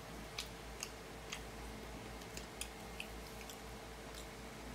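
Close-up chewing of fried chicken wings, with irregular short crisp crunches and mouth clicks, about a dozen in all.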